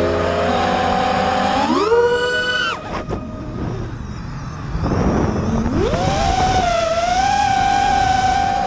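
Onboard audio of an Astro X5 FPV drone's electric motors and propellers: a whine that climbs in pitch about two seconds in, cuts back sharply near three seconds, then climbs again and holds steady, rising once more near the end as the throttle changes.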